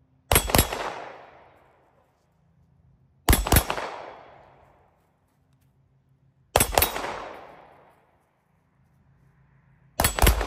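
Tisas Duty 9mm pistol firing in quick strings of two or three shots, four strings about three seconds apart. Each report echoes and fades over about a second.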